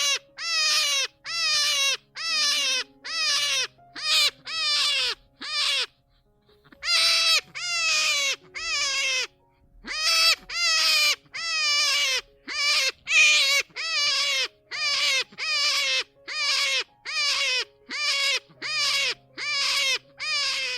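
A hare squealing: a long string of short, high, wavering calls, about one and a half a second, each dropping in pitch at its end, with two brief pauses. Soft background music plays underneath.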